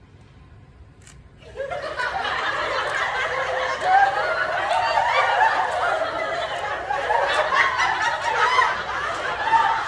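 Laugh track: a crowd laughing together, starting about a second and a half in after a brief hush.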